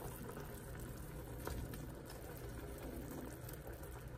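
A pot of tteokguk broth simmering with a steady low bubbling, while sliced rice cakes are slid in from a bowl with a few faint soft plops.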